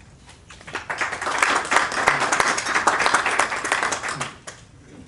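Audience applauding. The clapping builds about a second in and dies away near the end.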